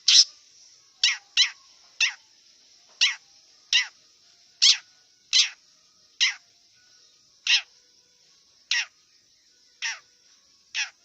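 Long-tailed shrike (cendet) giving a run of short, harsh scolding calls, about one a second, some thirteen in all, over a steady high hiss.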